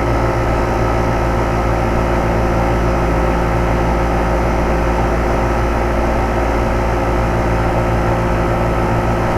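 2007 Carrier 2.5-ton single-stage central air-conditioner condensing unit running steadily: a compressor hum with several steady tones under the noise of the condenser fan. The owner finds the unit noisier than a nearly identical one next door.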